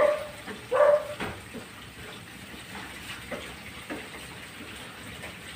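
Two short dog barks near the start, then a metal ladle clicking and scraping now and then in a pan of coconut milk simmering down into latik.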